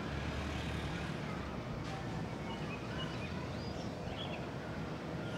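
Outdoor residential ambience: a steady low background rumble with a few faint, short bird chirps.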